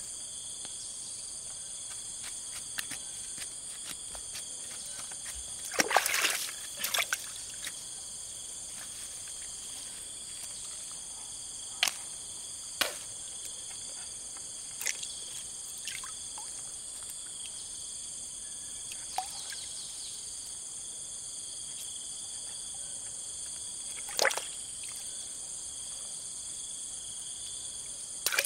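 A steady, high-pitched chorus of insects droning, with scattered short water splashes and drips. The loudest splash comes about six seconds in, with another near the end.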